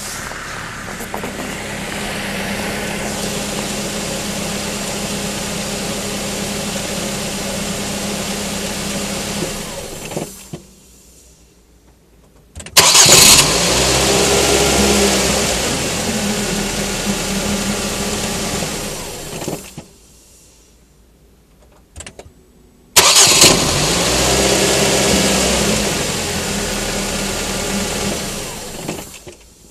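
Ford Mondeo Mk3 engine, heard from down by the front left wheel, idling and then switched off about ten seconds in; it is started twice more, each time catching with a loud burst, running for several seconds and being switched off again. The shutdowns are where the owner is listening for a knock in the engine area.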